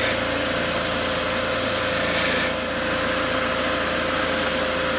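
Wood lathe's electric motor running with a steady hum while a hand-held Russian-style lathe knife shaves a spinning wooden spindle. The cut is a continuous hiss that grows louder and brighter from about one and a half to two and a half seconds in. The blade cuts without rattles, pops or squeaks.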